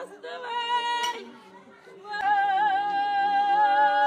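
Women wailing in mourning, a sing-song lament of long, wavering held cries. A shorter cry comes first, then the loudest, longest one from about two seconds in.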